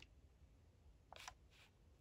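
Near silence: room tone, with two faint brief sounds about a second in, during a pause in typing.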